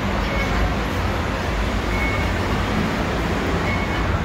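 Steady din of road traffic and station crowd noise in a busy elevated train-station concourse, with a few faint short high beeps.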